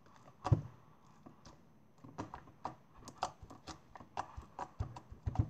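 Homemade slime being squeezed and poked by hand, making a string of irregular small clicks and pops, the loudest about half a second in.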